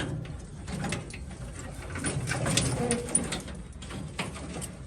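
A pigeon cooing low, with light clicks and rustles of old wiring being handled.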